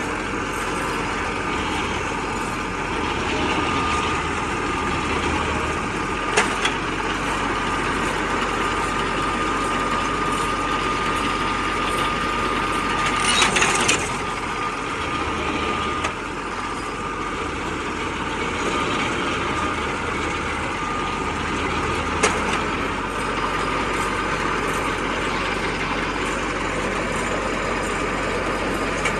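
Tractor engine running steadily while pulling an Allis-Chalmers Roto-Baler at work in hay, with a thin steady high tone and a few sharp knocks, the loudest clatter about halfway through.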